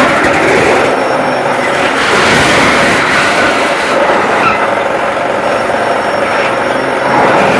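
CNC metal-spinning machine running, a loud steady mechanical din with wavering tones.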